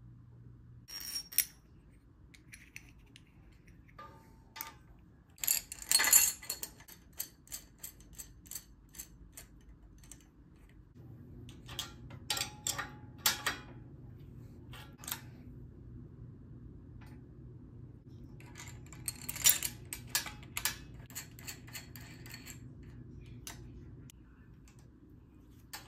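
Clusters of sharp metallic clicks and clinks from hand tools: a bicycle repair-stand clamp being set, then wrenches turning the nuts of a threaded headset press that seats the headset cups in the frame's head tube. The loudest clusters come about six seconds in and again near twenty seconds.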